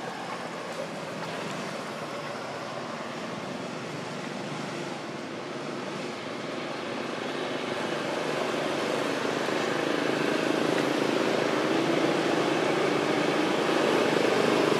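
Engine noise, a steady drone that grows louder through the second half.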